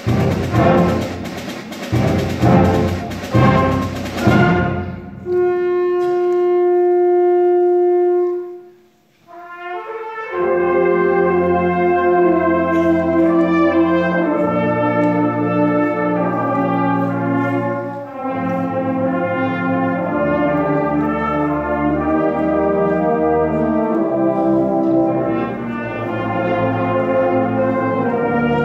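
School concert band playing a wind-band piece: a loud, accented full-band passage, then a single held note that fades away to a brief pause about nine seconds in, followed by a slower passage of sustained, layered brass and woodwind chords.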